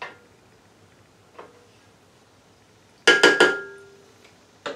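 Wooden spoon knocked three times in quick succession against a stainless steel cooking pot about three seconds in, the pot ringing briefly after the knocks, with a couple of lighter clicks near the end.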